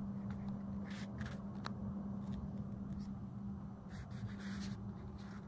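Steady low rumble and hum inside a moving passenger train carriage, with a few soft clicks and scrapes; a brief cluster of them comes about four seconds in as the camera is moved.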